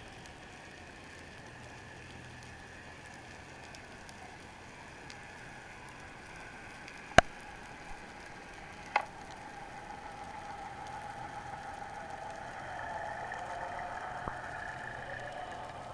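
Underwater recording: a steady hiss of the sea, two sharp clicks about seven and nine seconds in, the first much the loudest, then the drone of a boat's motor heard through the water, growing a little louder over the second half.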